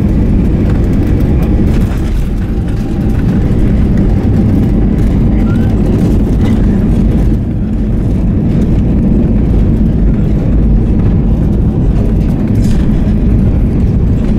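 Airbus A321 jet engines and airframe, a steady loud rumble heard from inside the passenger cabin.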